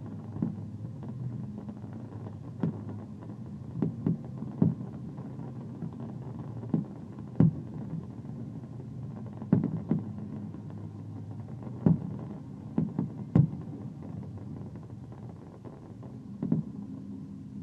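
Fireworks shells bursting: irregular muffled bangs, about fifteen of them, some in quick pairs and triples, over a steady low rumble.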